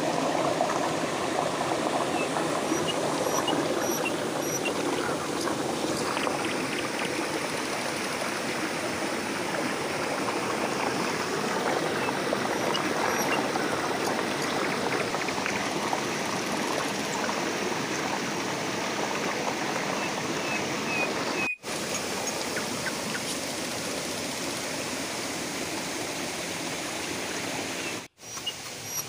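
A small rocky stream flowing and splashing steadily over stones, with the sound dropping out briefly twice.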